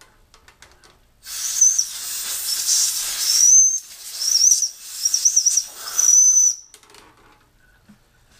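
Compressed-air blow gun blowing chips off a drilled plate in a vise: a loud hiss with a high whistling tone, in several blasts over about five seconds, cutting off suddenly.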